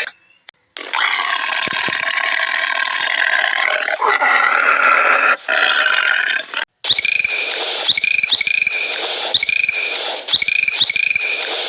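Animal calls: one long, continuous, harsh call lasting about six seconds, then after a brief break a series of short, high, bird-like calls repeating about twice a second.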